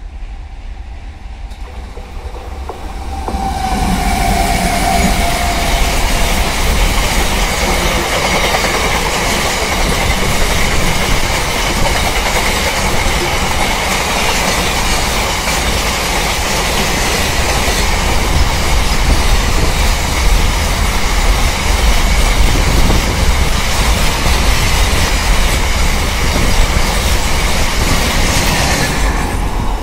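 Container train of flat wagons running through at speed behind a WAG-12B electric locomotive. The sound builds over the first few seconds as the locomotive approaches, with a brief tone as it passes. Then comes a long, steady, loud rolling noise of the wagons' wheels on the rails, easing just before the end.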